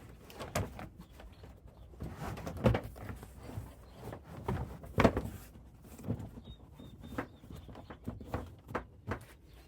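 A thick WeatherTech trim-to-fit cargo mat being handled and laid into a car trunk: irregular thumps and scuffs, with two louder thumps near the middle.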